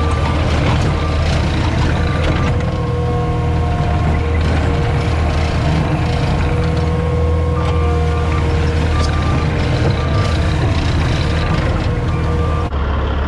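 CAT 259D compact track loader's diesel engine running hard, with its backup alarm beeping in a steady on-off pattern while it reverses. The beeping stops for a few seconds in the middle, then starts again.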